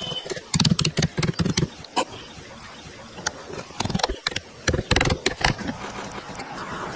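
Hand woodworking on a block of wood: irregular sharp knocks and taps, several in quick runs, with a steadier scraping-like noise starting near the end.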